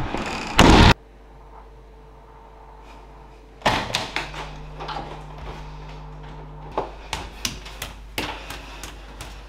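A door slams shut about a second in, followed by quiet room tone. A sharp knock and clatter come a few seconds later, with a low steady hum for a couple of seconds. Near the end, light footsteps climb a staircase.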